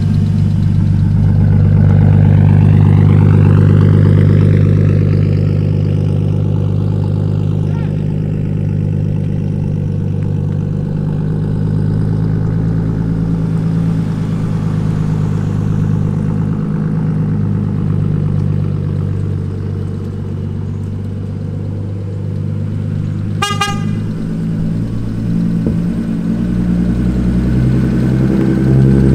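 Turbocharged BMW M52 inline-six in an E30 running through a new 3-inch stainless turbo-back exhaust, its note climbing over the first few seconds and then holding steady. The engine is still untuned. About 23 seconds in there is one brief, high-pitched toot.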